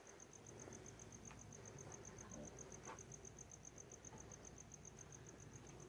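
A cricket chirping faintly and steadily, a high-pitched note pulsed evenly at about ten a second, over a faint low rumble.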